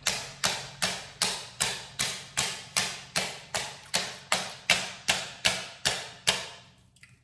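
An even run of sharp clicks or taps, about two and a half a second and some eighteen in all, then stopping: a container that is hard to open being worked open by hand.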